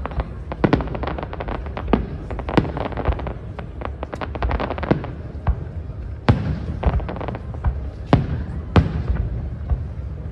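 Aerial fireworks exploding, heard across the water: a rapid run of cracks and pops in the first half, then several heavier single booms, over a low rumble of echoes.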